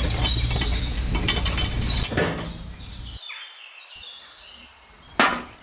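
Rapid mechanical clicking over a low hum for about three seconds, stopping suddenly, then a single sharp click near the end.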